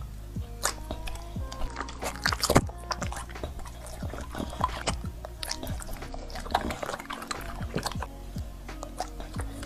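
Wet smacking and clicking, many short irregular sounds in quick succession, like a dog chewing.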